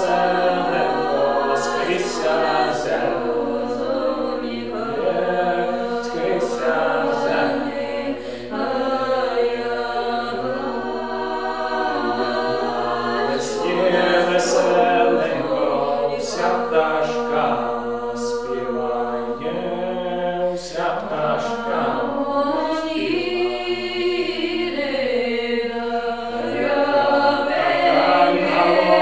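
A small group of voices singing a traditional Ukrainian folk song a cappella, without instruments, growing louder near the end.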